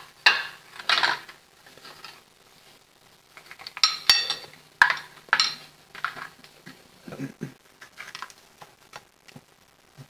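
Kitchen utensils clinking and scraping against dishes in irregular bursts as filling is spooned out.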